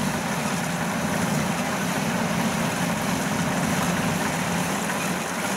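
Kubota DC93 combine harvester cutting rice, its diesel engine running steadily under load together with the threshing machinery.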